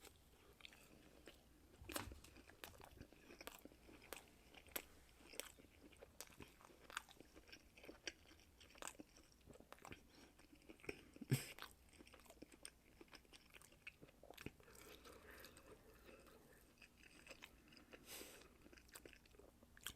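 Faint chewing of sauce-dipped boneless chicken bites: soft, irregular crunches and wet mouth clicks.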